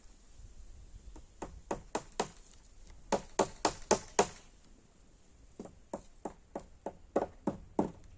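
Hammer blows in three quick runs of about three strikes a second, the middle run the loudest, typical of nailing during a greenhouse repair.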